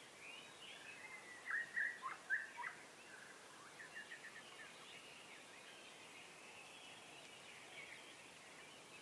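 Small birds singing and chirping: a burst of short, loud whistled notes about a second and a half in, then a quick trill and softer chirps over a faint hiss.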